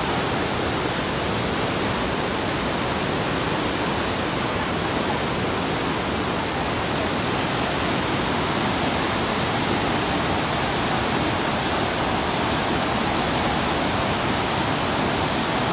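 A river in flood, brown and silt-laden, rushing over a weir and embankment edge in turbulent standing waves: a steady, unbroken rush of water.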